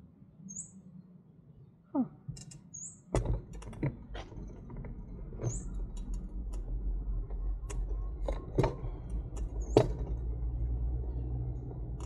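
A bird giving a short high chirp every few seconds. From about three seconds in, a low rumble with scattered sharp clicks and knocks as the bicycle rolls along the path.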